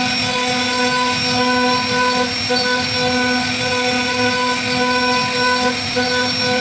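CNC router spindle carving into a wooden pillar: a steady whine with the rough noise of the bit cutting through the wood.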